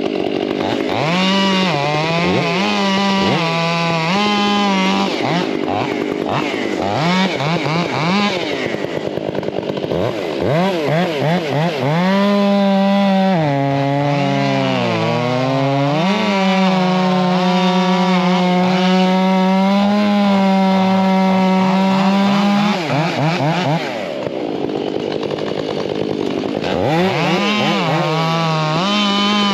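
Two-stroke chainsaw running at high revs while bucking firewood. The pitch rises and falls with the throttle, sags as the chain bogs down in a cut about halfway through and recovers, then drops off briefly before revving up again near the end.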